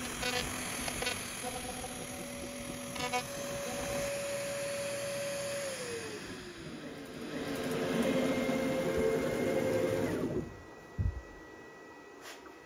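CNC router spindle cutting into a cedar board with a steady whine, which falls in pitch about six seconds in as the spindle spins down. The machine then runs louder for about three seconds, cuts off, and a dull thump and a click follow.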